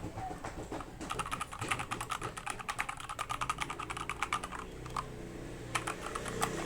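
Keychron K2 mechanical keyboard with Gateron Brown switches and ABS keycaps being typed on quickly, keys clacking in rapid succession. The typing breaks off for about a second after the middle and resumes near the end.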